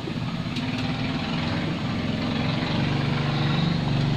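Chicken and corn broth boiling hard in an aluminium wok over a gas burner: a steady hiss with a low hum, growing a little louder toward the end.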